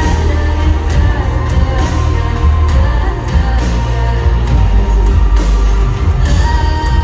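Live pop-rock band playing loudly, full band with heavy bass and drums and a vocal line over it.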